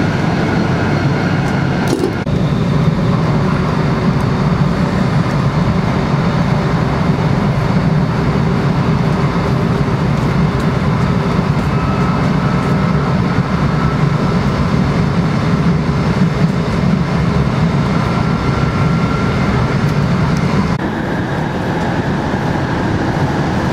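Cabin noise inside an E4 series Max double-decker Shinkansen as it runs: a steady, loud, deep rumble with hiss above it. There is one short knock about two seconds in, and the sound shifts slightly near the end.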